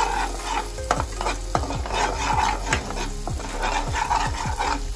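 A perforated steel spoon stirring and scraping thick masala paste around a nonstick kadhai, with repeated strokes about twice a second over a steady sizzle. The paste is frying in oil and is cooked to the stage where the oil separates from it.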